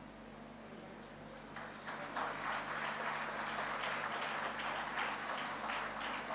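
Audience applauding, starting about one and a half seconds in as many hands clap at once.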